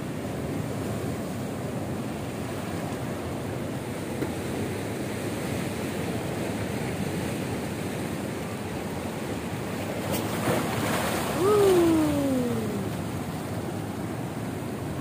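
Sea waves washing and breaking on a rocky shore, with some wind on the microphone. About ten seconds in there is a sharp click and the surf swells, then a short pitched sound falls steadily in pitch over about a second and a half.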